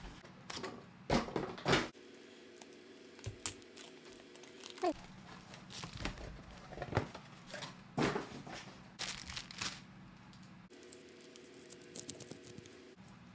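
Packaging being torn open and handled: irregular tearing, crinkling and rustling in short bursts as the wrapping is pulled off.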